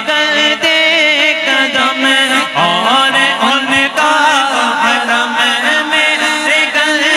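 Two men's voices reciting a naat, an Urdu devotional song, into handheld microphones with no instruments: a lead voice with a second voice joining, the melody sliding up and down with ornaments.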